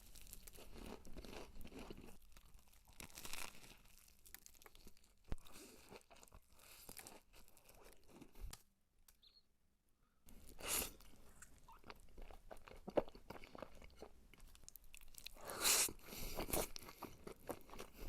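Close-miked crunching and chewing of a crispy fried chicken drumstick's breaded coating, bite after bite, with a brief pause about nine seconds in and louder crunches near the end.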